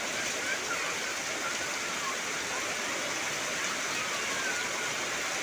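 Heavy rain falling steadily, a dense, even hiss of downpour.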